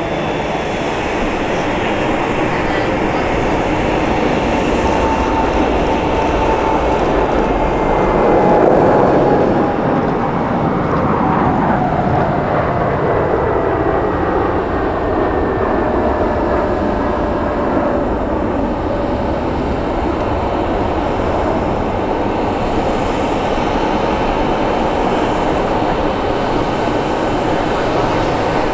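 Boeing 787-9 Dreamliner's Rolls-Royce Trent 1000 jet engines at takeoff thrust as the airliner departs and climbs away: a steady jet rumble, loudest about nine seconds in, with a whine that falls in pitch as it passes.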